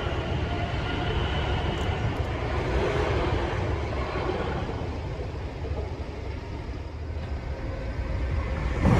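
Train rumbling past a level crossing, with a low steady rumble that dips midway and then grows louder near the end as a train comes closer.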